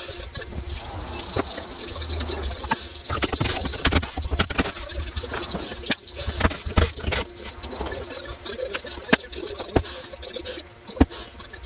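Irregular knocks, clicks and clatter of wooden benchwork and layout sections being handled and taken apart, the sharpest knocks about four, seven and eleven seconds in.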